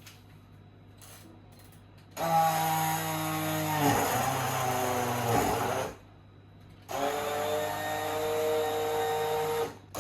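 Electric kitchen blender run in two bursts of about four and three seconds, its motor pitch sagging partway through the first burst as it works through the thick mixture.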